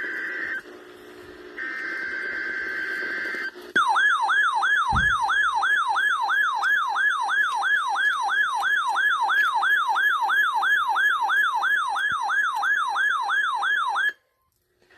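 Emergency alert broadcast on a radio: the end of one burst of steady digital header data tones and a second full burst, then a loud siren-like alert tone warbling up and down about two and a half times a second. The alert tone cuts off abruptly about a second before the end.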